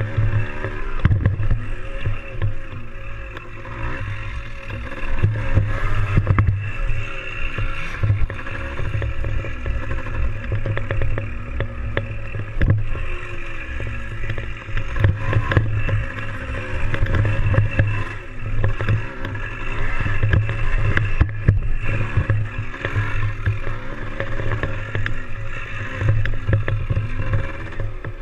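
Yamaha DT175's single-cylinder two-stroke engine running while riding, its pitch rising and falling again and again with throttle and gear changes.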